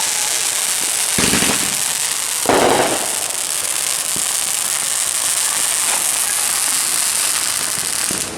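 Consumer fireworks going off: a steady, dense crackling hiss, with louder bursts about one second and two and a half seconds in.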